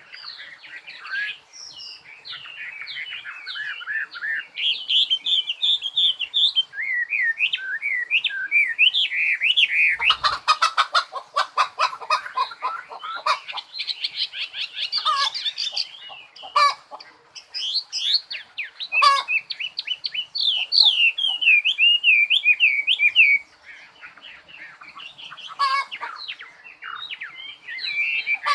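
A songbird singing a long run of rapid, varied chirps and warbles, broken a third of the way in by a few seconds of harsh rattling, with a few sharp single notes later on.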